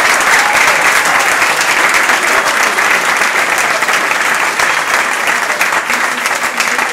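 Audience applauding: dense, steady clapping from a full room.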